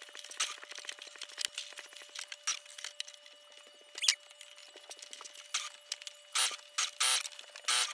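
Electric sewing machine stitching a hem: a fast, even run of needle ticks that stops about a second in. Then scattered clicks as the machine and fabric are handled, and several loud rustles of cloth near the end.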